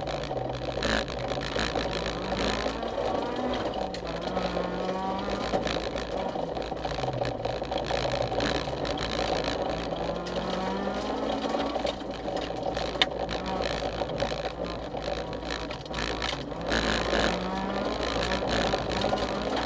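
Honda CRX rally car's engine heard from inside the stripped cabin, its revs climbing and dropping again and again through gear changes and corners at stage speed, over steady road and gravel noise from the tyres. A single sharp click about 13 seconds in.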